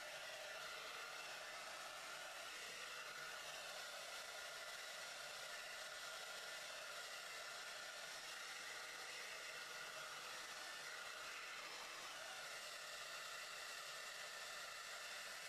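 Handheld hair dryer running steadily as it blows on wet curly hair: a constant, fairly quiet rushing hiss with a faint steady whine in it.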